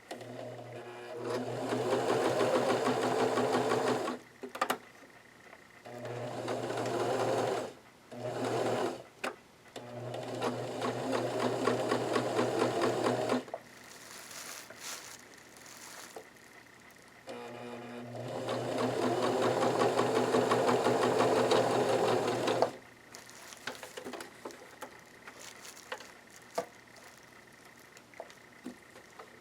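Janome ME4014 sewing machine stitching in several runs: a few seconds of running, stopping, then starting again, five runs in all, the longest about five seconds, with quiet and a few small clicks between them and after the last.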